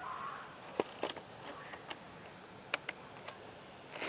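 Several short, sharp clicks, a few spread across four seconds, from a Mamiya RZ67 medium format camera's controls being worked on its tripod while the shutter will not fire.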